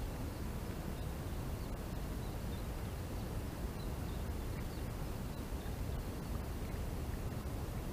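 Steady low outdoor noise, wind on the microphone, with faint high bird chirps.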